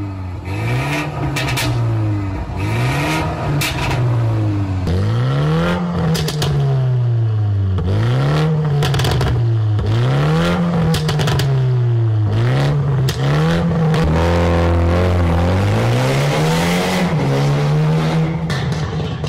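BMW 330i's turbocharged 2.0-litre four-cylinder free-revving through a Stone valvetronic cat-back exhaust, first with the valve closed and then with it open. There are about ten quick blips, each rising and falling, with one longer held rev late on and sharp cracks between the revs.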